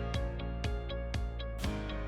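Background music: plucked guitar-like notes, about two a second, over held tones.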